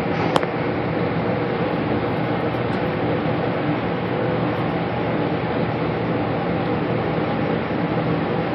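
Steady rushing air noise from a paint spray booth's ventilation fan, with one brief click about half a second in.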